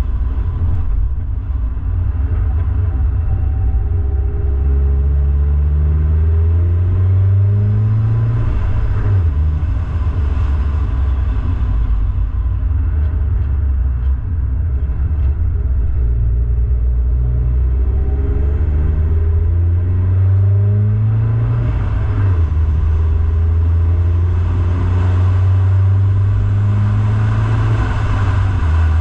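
Car engine pulling uphill, its pitch climbing as it accelerates and dropping sharply at a shift about nine seconds in and again about twenty-two seconds in, over steady low road rumble.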